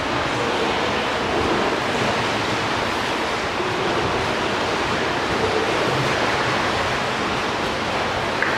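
Indoor swimming pool ambience: a steady, even wash of water noise from the pool.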